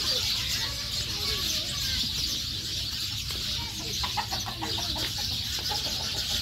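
A bird calling in a quick run of short notes about four seconds in, over a steady high-pitched hiss.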